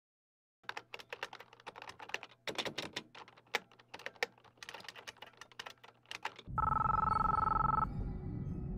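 Fast typing on a computer keyboard, a quick run of irregular key clicks. About six and a half seconds in, a telephone starts ringing, a steady electronic two-tone ring with a low buzz under it that lasts about a second and a half and then stops.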